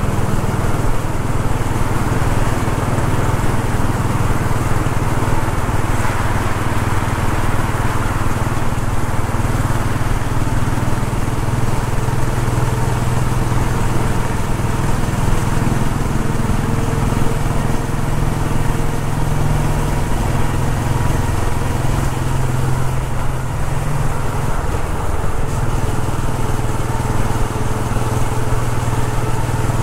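Royal Enfield Bullet 500 EFI's single-cylinder engine running steadily while riding, its pitch shifting a little around the middle.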